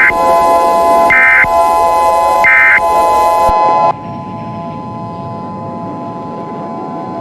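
Emergency Alert System-style electronic tones: a steady, harsh alert tone with hiss, broken by three short high data chirps about a second and a half apart, the end-of-message bursts that close the alert. About four seconds in it drops abruptly to a fainter steady tone with hiss.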